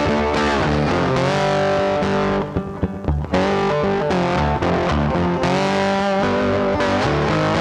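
Background rock music with distorted electric guitar chords, broken briefly about two and a half seconds in.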